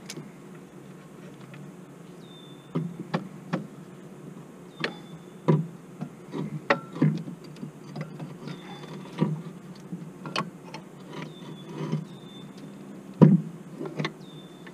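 Irregular clinks and knocks of hand tools and metal parts being handled while a mini excavator's hydraulic swing motor is refitted, a dozen or more sharp knocks with the loudest near the end.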